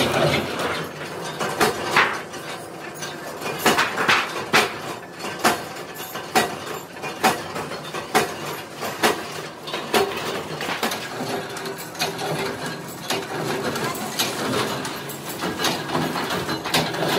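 Large thin metal sheet being handled and fed onto a rotary slitting machine: irregular sharp metallic clanks and pops as the sheet flexes and knocks against the machine bed, over a steady background noise.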